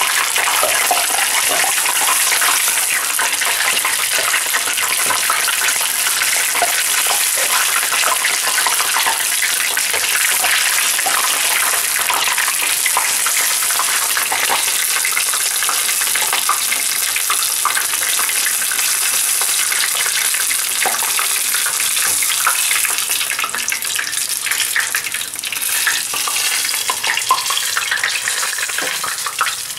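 Battered borage leaves deep-frying in hot sunflower oil: a steady, loud sizzle with dense crackling.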